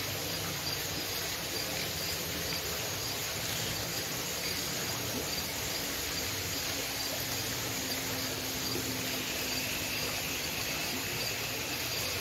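Insects chirping steadily, a high, evenly pulsed call repeating through the whole stretch, with a second thinner high tone joining about nine seconds in.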